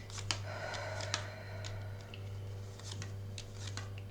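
Tarot cards being handled on a table: scattered light clicks and taps, with a brief sliding rustle about half a second to a second in, over a steady low electrical hum.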